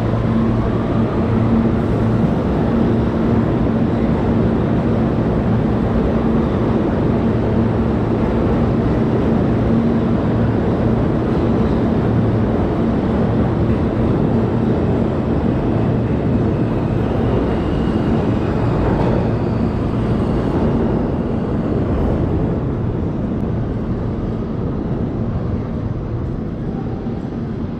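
New York City subway Q train pulling out of the station and running past along the platform: a loud, steady rumble of wheels and motors with a low hum. A motor whine rises near the start, and the sound fades over the last several seconds as the train leaves.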